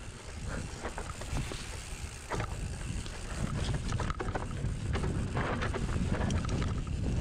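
Mountain bike rolling over a rough trail: wind buffeting the microphone as a continuous low rumble, with frequent short rattles and knocks from the bike over the ground.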